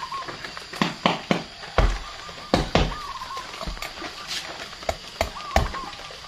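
A broad knife chopping and prying into the thick spiny husk of a Black Thorn durian: about ten sharp knocks at irregular intervals.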